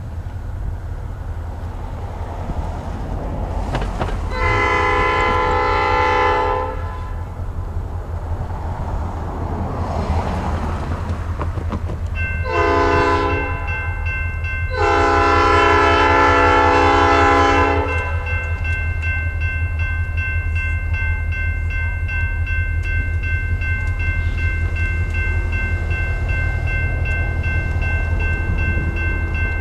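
Diesel freight locomotive's multi-chime air horn sounding three blasts, long, short and long, over the steady low rumble of the approaching train. A steady high ringing starts about twelve seconds in and keeps going after the horn stops.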